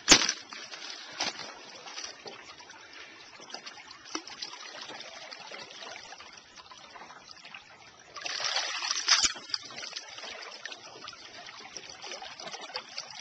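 Shallow river water trickling and running, with a sharp click at the start, a few faint ticks, and a louder rush of water noise lasting about a second about eight seconds in.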